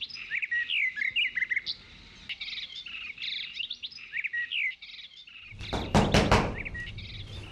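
Small birds chirping and twittering in quick, repeated calls. About five and a half seconds in, a louder burst of noise with several sharp strokes covers them briefly.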